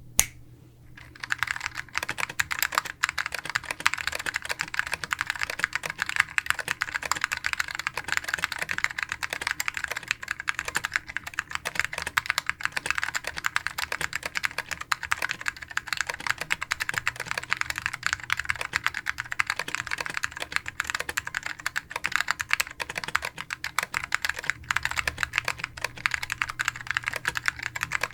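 Fast, continuous typing on a gasket-mounted 60% keyboard with undamped vintage Alps SKCM Cream switches, a 1.2 mm Delrin (POM) plate and HP Vectra CS dye-sub PBT keycaps. A single key click sounds at the start, and the steady stream of keystrokes begins about a second in.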